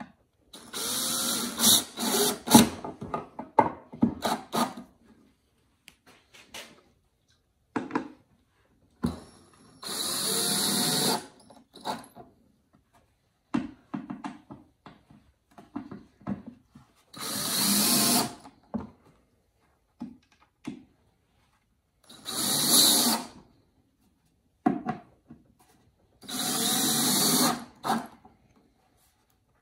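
Cordless drill driving wood screws into pine boards in five separate runs of a second or two each, with short clicks and knocks between runs as the next screws are set.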